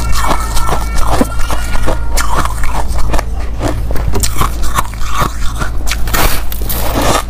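A person biting and chewing white powdery ice: a quick, irregular run of crisp crunches, over a steady low hum.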